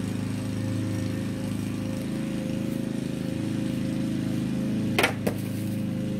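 Lawn mower engine running steadily at an even speed, with two sharp knocks about five seconds in.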